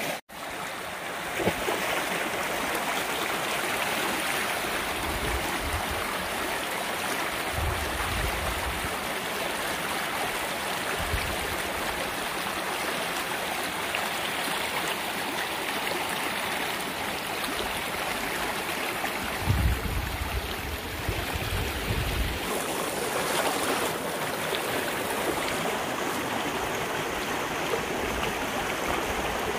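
Small rocky mountain creek rushing and burbling over stones in a steady flow, with a few brief low rumbles.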